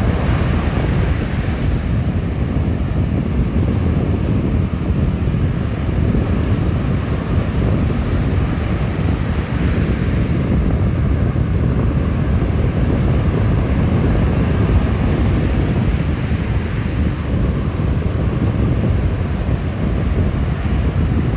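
Strong wind buffeting the microphone: a loud, steady low rumble with no let-up.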